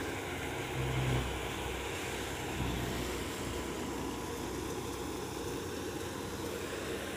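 Massey Ferguson 240 tractor's three-cylinder diesel driving a thresher that is threshing sesame plants: a steady drone of engine and threshing drum. The low rumble briefly swells about a second in.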